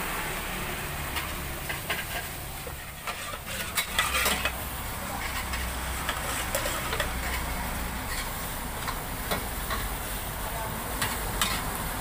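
Kitchen clatter: metal ladles, spoons and a wire strainer clinking and scraping against aluminium pots while food is scooped and mixed, over a steady low background hum. The knocks come in a short cluster about four seconds in, then scattered singly.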